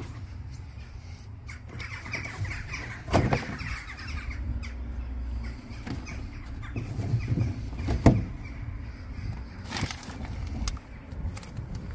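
Hand-handling noise in a car boot as the spare wheel cover, mat and boot contents are touched and moved: rustles and a few knocks, the sharpest about eight seconds in, over a steady low rumble.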